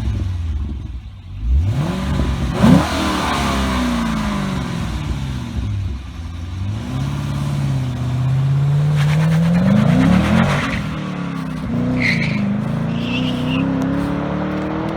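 2010 Chevrolet Camaro SS's LS3 V8 through a Magnaflow cat-back exhaust, revving: a quick blip about two seconds in, then a longer climb in revs that drops off sharply about ten seconds in, settling back toward a lower, steady run.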